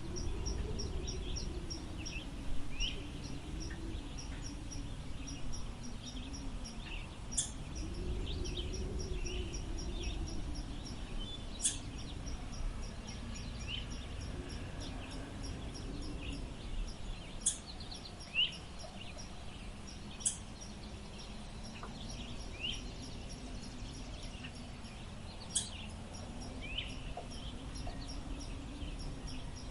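Wind blowing steadily, with a low hollow tone that swells and fades, under scattered short rising bird chirps and a fast, even high ticking.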